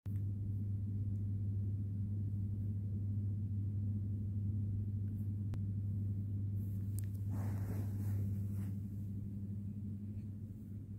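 A steady low hum, with a brief rustle about seven seconds in.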